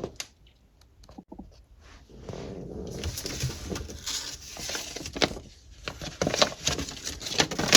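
Plastic LEGO bricks being handled: scattered light clicks and rustling, beginning after about two seconds of near silence.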